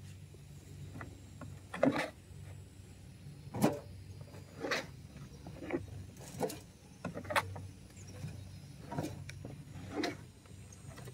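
Shovels scooping and scraping mulch out of a pickup truck bed and tipping it into a wheelbarrow: sharp, uneven scrapes about once a second over a steady low hum.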